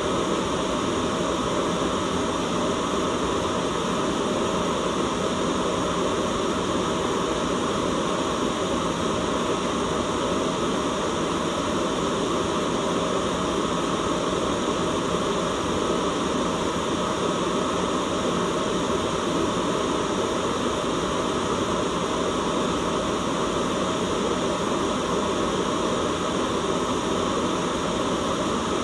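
Steady white noise: an even, unchanging hiss with a fuller low rush underneath.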